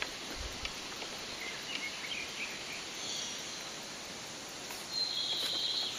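Outdoor ambience: a steady background hiss with a few faint clicks, a cluster of short high chirps about two seconds in, and a louder, longer high call about five seconds in.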